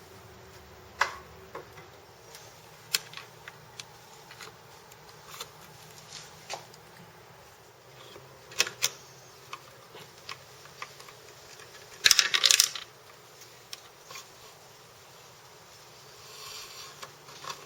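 Scattered metallic clicks and clinks of an 8 mm wrench and 3 mm Allen key on the fasteners of a Vespa LX150's turn-signal pods, with a louder burst of clattering about twelve seconds in and a short rustle near the end.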